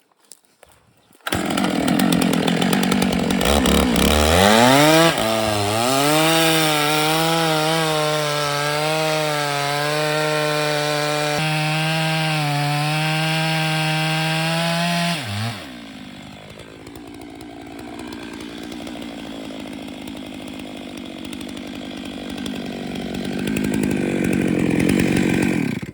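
Two-stroke chainsaw revving up and running at steady high speed. About 15 s in the engine drops away, leaving a quieter, rougher sound that grows louder again toward the end.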